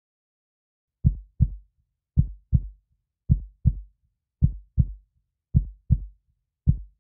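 Heartbeat sound effect: after a second of silence, six steady lub-dub double beats, low thumps in pairs, about one pair a second.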